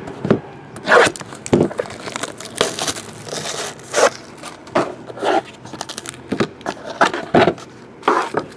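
Plastic wrapping and packaging crinkling and tearing as a sealed trading card box is opened by hand, in a run of irregular rustles and scrapes.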